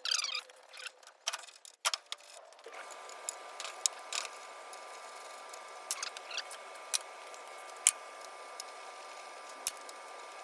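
Scattered light metallic clicks and taps of hand tools working on a motorcycle's front wheel and brake hardware. A steady faint hum with a few fixed tones comes in a few seconds in.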